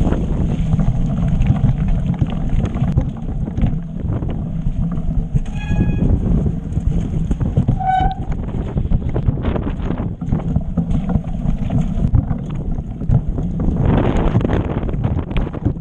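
Voodoo Canzo mountain bike ridden over a rough, rocky trail: wind buffeting the microphone over the rumble of the tyres and constant rattling and knocking from the bike. There are two short squeals, one about six seconds in and one about eight seconds in, and a louder rush of noise near the end.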